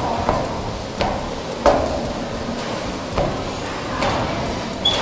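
Five irregular hollow knocks, each with a short ring, over a steady rushing background; the loudest comes about a second and a half in.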